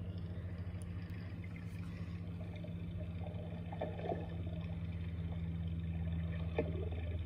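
Underwater footage's soundtrack played through a tablet's speaker: a steady low hum, with a couple of faint ticks about four seconds and six and a half seconds in.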